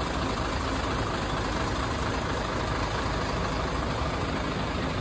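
A vehicle engine idling steadily under a continuous wash of noise.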